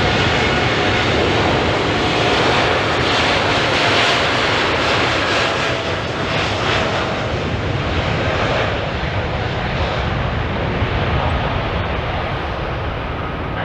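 Boeing 787-9 airliner's Rolls-Royce Trent 1000 turbofans at taxi power as it rolls past: a steady jet engine whine and rumble, loudest about four seconds in and fading as the aircraft moves away.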